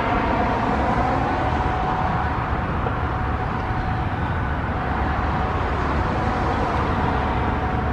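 Federal Signal 508 outdoor warning siren sounding a steady-pitched tone, the alert signal, its level dipping slightly and swelling again as the rotating horn turns. A low rumble runs underneath.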